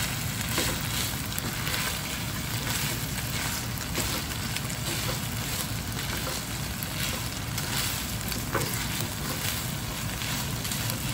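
Diced carne asada sizzling steadily in a large nonstick skillet, nearly done, with a silicone spatula stirring it now and then.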